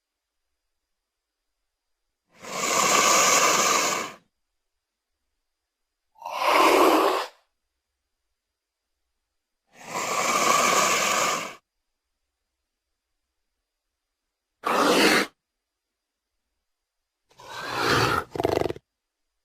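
Velociraptor creature sound effects: five separate hissing calls, each a second or two long, cut apart by dead silence. The last is a short double call.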